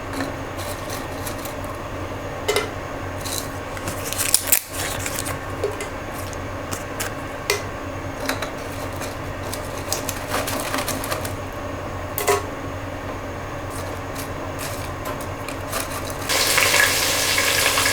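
Whole spices in a pan of hot oil, with occasional small clicks and clinks over a steady low hum; near the end a loud frying sizzle starts as more ingredients go into the oil.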